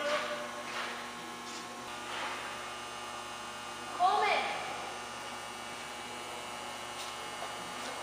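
Steady electrical hum. About four seconds in there is one brief, louder pitched sound whose tones bend.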